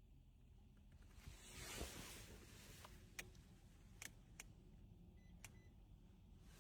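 Near silence with a soft rustle about two seconds in, then four faint sharp clicks spread over the next few seconds.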